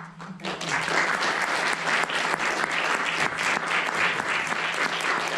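Audience applauding, starting about half a second in and quickly building to steady clapping.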